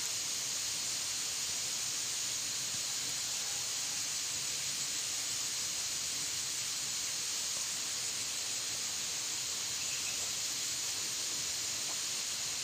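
Steady high-pitched hiss of an insect chorus in the surrounding vegetation, unbroken and at an even level.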